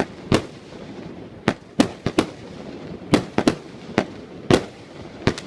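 Fireworks display: a string of sharp bangs from exploding shells at uneven intervals, about ten in all, some in quick pairs.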